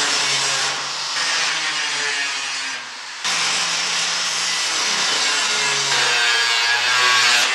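Angle grinder with a cutting disc running hard through sheet steel, a steady harsh grinding with a motor whine under it. It dips briefly about three seconds in, then comes back at full strength.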